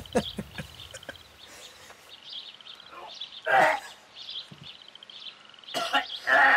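A man gagging: two loud retches, one about three and a half seconds in and a longer one near the end, brought on by disgust. A faint high pulsing chirp repeats steadily in the background.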